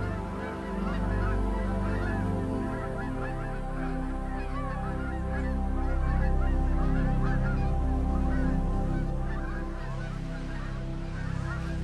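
Music of long held chords with many short bird calls chattering over it, a little louder in the middle.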